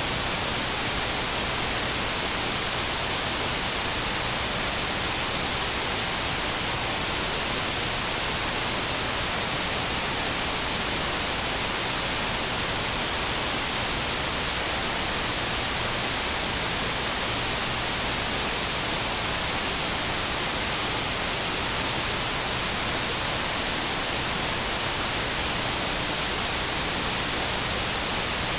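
Steady electronic hiss like white noise, unchanging and strongest in the high end, with no other sound over it.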